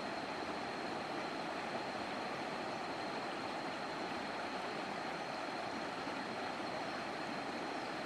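Shallow river rapids rushing and splashing over rocks, a steady, even rush of water.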